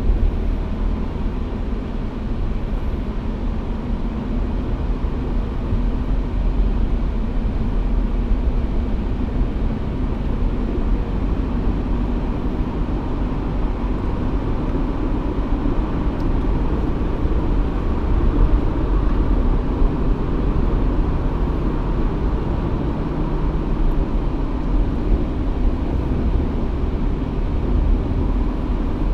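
Off-road 4x4's engine running steadily as the vehicle drives along a trail, a continuous low rumble with no big changes in level.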